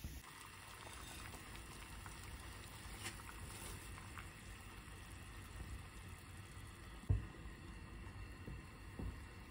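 Water boiling in a pot as dry somen noodles go in and are stirred with chopsticks. There is a sharp click about three seconds in and a low thump about seven seconds in.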